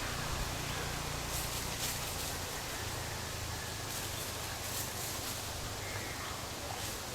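Outdoor ambience of birds calling, with short high-pitched calls about a second in, around the middle and near the end, over a steady hiss and a low hum.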